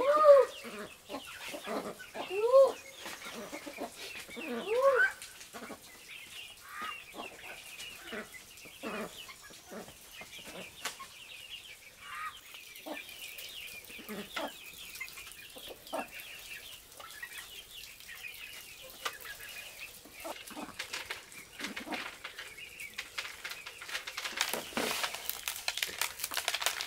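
Chickens clucking: three loud rising-and-falling calls in the first five seconds, then softer scattered clucks and clicks. A crinkling rustle starts near the end.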